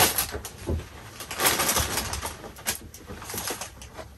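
Paper shopping bag and wrapping rustling and crinkling in irregular bursts as a wrapped dress is pulled out of the bag.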